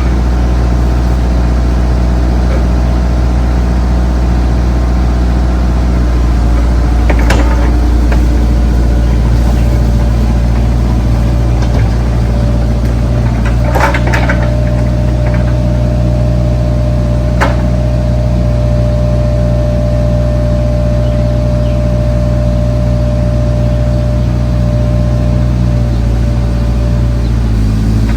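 Bobcat compact excavator's diesel engine running steadily, with a few metallic knocks and a steady whine that comes in about halfway through and stops just before the end.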